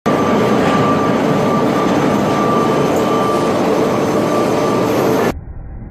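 Belch torch burning with a loud, steady roar and a faint steady whistle running through it. About five seconds in the roar cuts off abruptly, leaving a much quieter, muffled low rumble.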